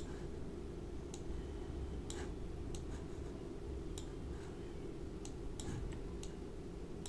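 Computer mouse clicking, about seven sharp clicks at uneven intervals, over a steady low hum.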